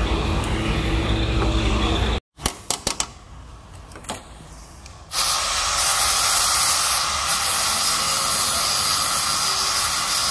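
Workshop noise in short cut-together pieces: a few sharp clicks, then about five seconds in a loud, steady, hissing grind starts, an angle grinder working the body metal around the windscreen frame.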